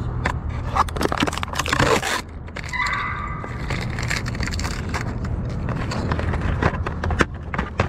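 Adhesive tape being pulled and peeled off close to the microphone: irregular crackling and scraping handling noise over a steady low hum.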